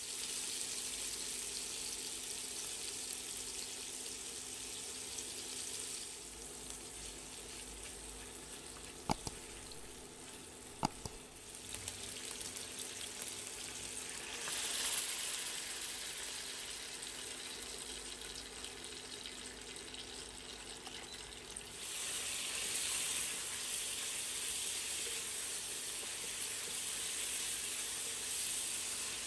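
Beef tocino sizzling as it fries in oil in a nonstick wok. The sizzle swells about halfway through as water is poured into the hot pan to cook the meat down into a glaze, then grows louder again later as it is stirred with a wooden spatula. Two sharp clicks about a third of the way in.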